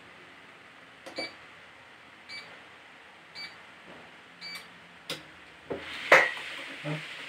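Treadmill console beeping four times, about a second apart, then a few knocks, the loudest about six seconds in, and the treadmill belt motor starting with a steady hiss.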